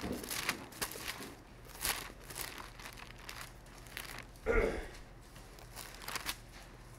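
Thin Bible pages being leafed through, a string of short papery rustles and swishes as someone looks for a passage. A brief voice sound breaks in about four and a half seconds in.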